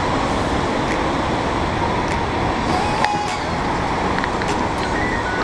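Steady roar of a rushing glacial meltwater river in white-water spate.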